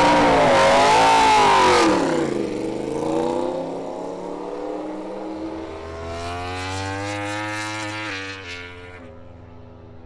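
Yamaha YZR-M1 MotoGP bike's inline-four engine, first revved hard with the pitch rising and falling, then dropping away; later the engine climbs in pitch under acceleration and drops in several quick steps as it shifts gear, fading near the end.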